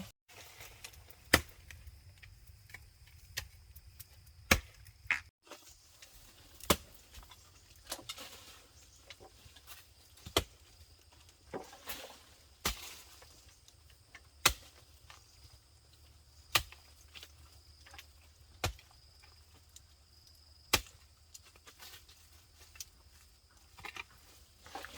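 Sharp chopping strokes of a blade, one about every two seconds, with softer knocks in between.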